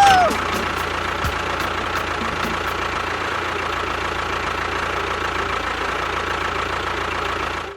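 A small motor running steadily, with a thin high whine over an even mechanical hum. It starts and stops abruptly.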